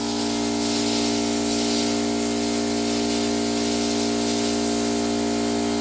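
Pop-up lawn sprinkler heads hissing steadily as compressed air and a little vapour blow out through them, the line nearly cleared of water. A small air compressor hums steadily beneath the hiss, running to keep up the air supply.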